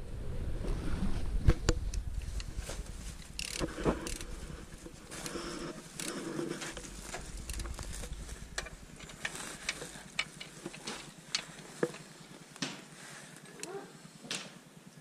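Scattered sharp clicks and knocks of metal parts being handled during repair work on a seed drill, over a low rumble that fades after the first few seconds.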